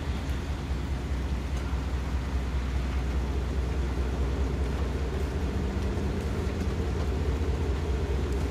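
GE Dash 9-44CW diesel locomotive running as it approaches at the head of a train: a steady low rumble that grows slightly louder as it nears.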